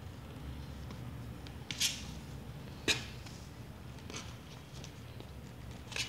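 Newborn kittens shifting and clambering on a cloth-lined cardboard box: a few short rustles and one sharper tap about three seconds in, over a low steady hum.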